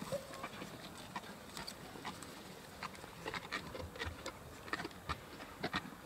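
Spotted hyenas feeding on a giraffe carcass: irregular sharp crunching and cracking as they chew and tear at bone and hide, with a brief low animal sound at the very start.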